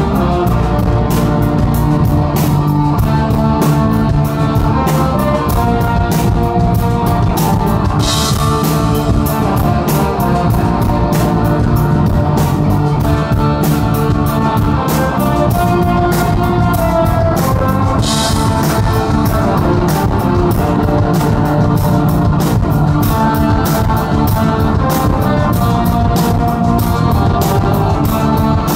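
Rock band playing live and loud: electric guitar over a steady drum-kit beat.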